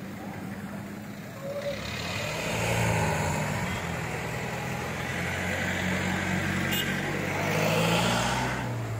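Motor vehicle engines running in passing traffic close by. The sound swells about three seconds in and again near the end.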